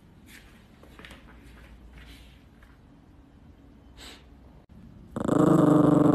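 A few faint clicks and rustles, then about five seconds in a small dog suddenly starts growling loudly and keeps on, a steady growl.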